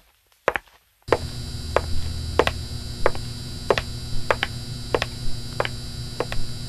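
Two sharp clicks of high-heel steps, then about a second in a neon sign's electrical hum and buzz switches on and holds steady, with irregular sharp crackling clicks over it.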